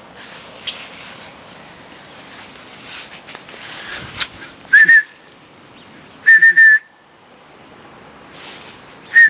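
Short, high, steady whistles calling a dog: one about five seconds in, a quick run of them around six and a half seconds, and another near the end, over the rustle of leaves being pushed aside.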